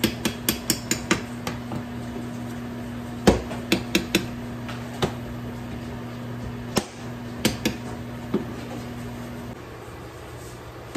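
Kitchen clatter: sharp knocks and clinks of utensils and dishes, a quick run of them at first and then scattered, over a steady low hum that cuts off near the end.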